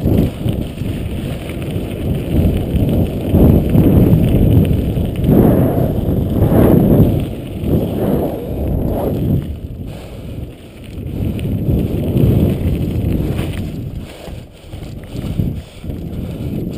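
Mountain bike ridden fast on a dirt and gravel trail: wind rushing over the action camera's microphone in uneven swells, with tyre rumble and frequent short rattles and knocks from bumps, more of them in the second half.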